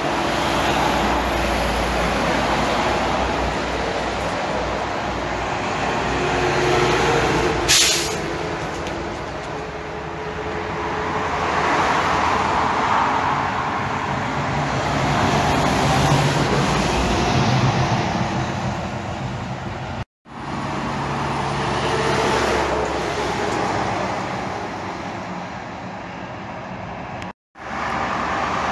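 Highway traffic passing close below: lorries and cars going by, their tyre and engine noise swelling and fading as each one passes. About eight seconds in there is a brief sharp hiss, and the sound cuts out abruptly twice later on.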